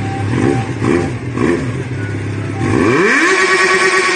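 Motorcycle engine idling with three short throttle blips, then revved up hard about three seconds in and held at high revs.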